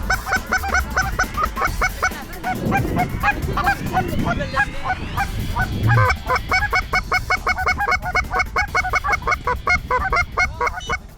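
Geese honking: rapid, repeated honks that run almost without a break, thinning out briefly around the middle.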